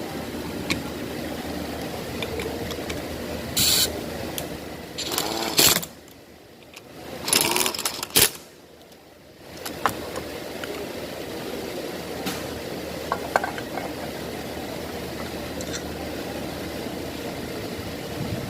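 Clicks, knocks and clattering of hand work on a car's steering column over a steady background hum, with several louder clattering noises near the middle.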